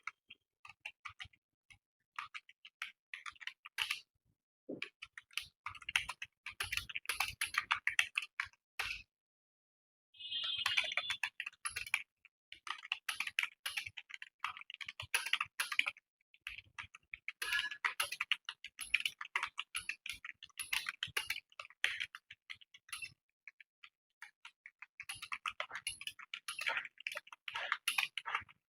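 Computer keyboard being typed on quickly, in runs of rapid keystrokes broken by short pauses, with one pause of about a second near the middle.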